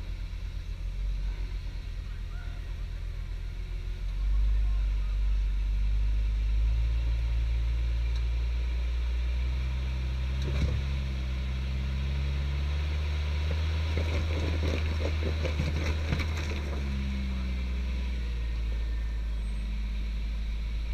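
Jeep Cherokee XJ engine running at low revs as it crawls over a rock ledge, the throttle coming up about four seconds in and the engine note shifting as it climbs. A single sharp knock about halfway through, then a couple of seconds of clicking and crunching as the tyres work over the rocks.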